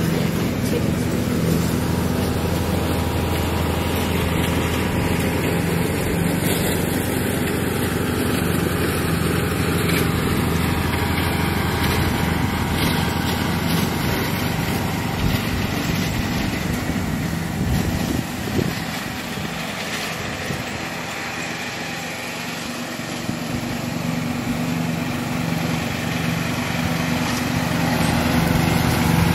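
A small engine running steadily, growing fainter a little past the middle and louder again near the end.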